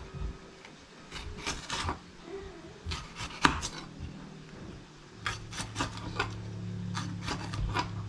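Kitchen knife slicing a red bell pepper into strips on a plastic cutting board: a series of light knife taps on the board, coming closer together about five seconds in. A low steady hum rises behind them at the same point.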